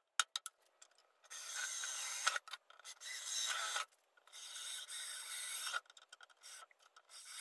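Cordless drill drilling out the rivets in an aluminium window sash frame, in several short runs of about a second each with brief pauses between them, the bit grinding through the rivet heads. A few light clicks come right at the start.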